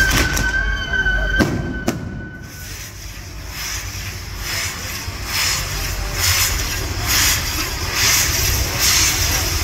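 Fireworks on a burning castillo, a lattice fireworks tower. A high whistle slowly falling in pitch fades out about two and a half seconds in, with two sharp cracks, then a dense crackle and hiss that swells in pulses and grows louder toward the end.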